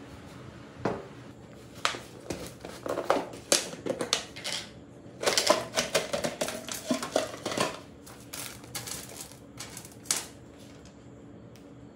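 Small jack parts (rubber seals, O-rings and little metal fittings) tipped from a plastic jar onto a steel checker-plate workbench and sorted by hand. Scattered clicks and knocks, with a dense rattling run for a couple of seconds about halfway through.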